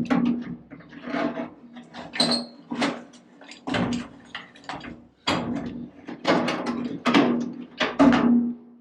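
Hammer blows on sheet steel, a run of sharp irregular strikes about two to three a second as a small repair panel is shaped by hand, over a steady low hum.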